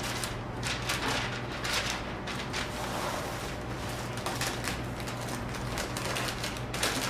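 Printed sandwich-wrapping paper crinkling and rustling in irregular bursts as it is folded around a focaccia sandwich, over a steady low hum.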